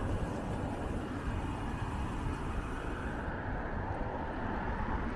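Steady low rumble of ambient street noise, traffic and wind, with no distinct events; the higher hiss drops away about three seconds in.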